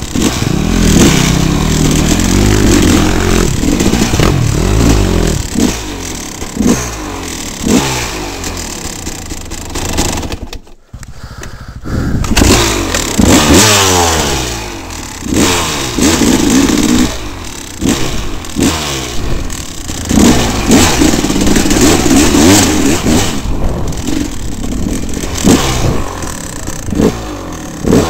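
Dirt bike engines revving up and down over and over while riding a rough trail, the revs climbing again and again as the throttle is worked and gears change. The sound nearly cuts out for about a second around the middle.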